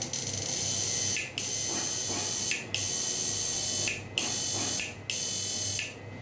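Digital electric shock-fishing machine (12-volt battery inverter) running under test with its output on, giving a high-pitched electronic buzz. The buzz breaks off briefly about every second and a half as the timer pulses the output.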